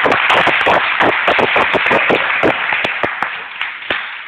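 Audience applauding, a dense run of many hand claps that thins and grows quieter near the end.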